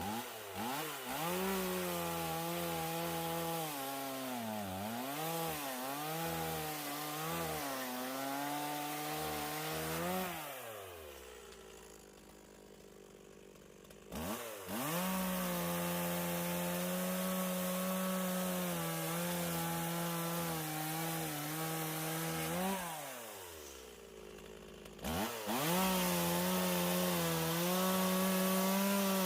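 Chainsaw cutting firewood logs, in three bursts. For the first ten seconds its pitch dips and recovers as the chain bites into the wood, then it winds down. It throttles up suddenly about fourteen seconds in and runs steady, winds down again near 23 seconds, and throttles up once more about 25 seconds in.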